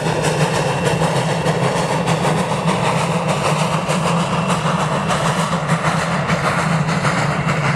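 Virginia & Truckee steam locomotive No. 29 and its coaches running on the rails: a steady, loud rumble with many small clicks throughout.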